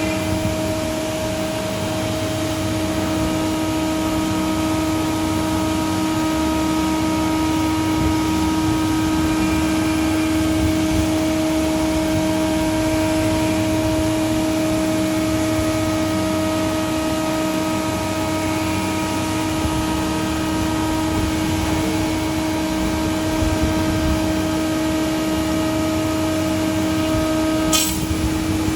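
CNC router running steadily while cutting plastic sheet: a constant spindle whine over a broad noisy rush. Near the end there is a short click and part of the whine drops out.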